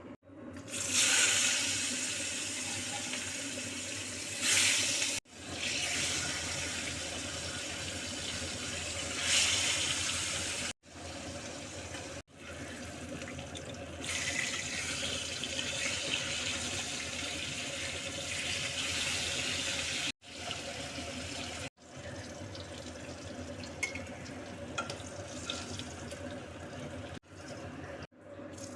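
Water running from a kitchen tap into a sink, heard as a steady rush in several short clips joined by abrupt cuts.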